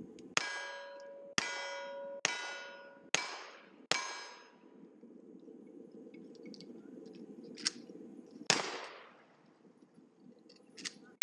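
Rifle shots about a second apart, five in a row, each followed by the ring of a struck steel target plate fading away. A few seconds later comes another shot that leaves no ring.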